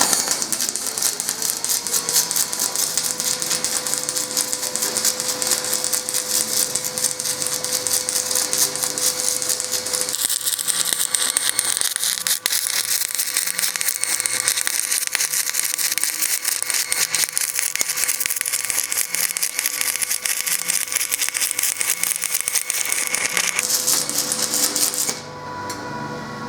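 Aluminum stick-welding arc burning a bead at 90 amps with a 4.5 Hz pulse, a dense steady crackle and hiss. It stops abruptly about 25 seconds in when the arc is broken.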